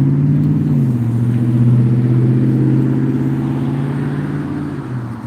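A motor vehicle engine running loud and close. Its pitch drops about a second in, then holds steady before easing near the end.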